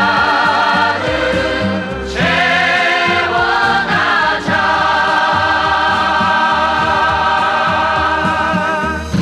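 A trot song with several voices singing together over an instrumental backing, in long notes with vibrato; about halfway through they settle on one long held note that lasts nearly to the end.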